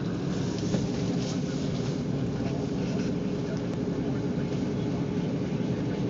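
Car cabin noise while driving through snow: a steady engine drone with road and tyre noise.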